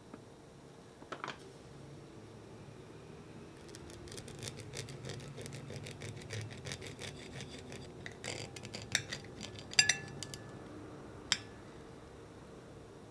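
A knife and fork cutting through a soft, syrup-soaked peach compote half on a plate: a stretch of fine wet crackling and scraping as the blade goes through the fruit, then several sharp clinks of metal against the plate, the loudest about eleven seconds in.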